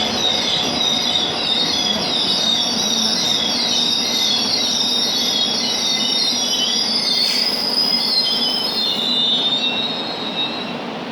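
Subway train running, its wheels squealing on the rails: a wavering, high-pitched squeal over steady rumbling running noise. About seven seconds in, a hiss joins for roughly two seconds, and the sound fades slightly near the end.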